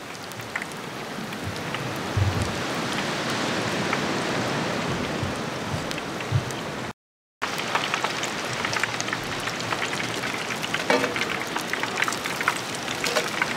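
Beer-battered halibut deep-frying in a pot of peanut oil, a steady sizzling hiss. After a brief break in the sound about halfway through it comes back with more popping and crackling.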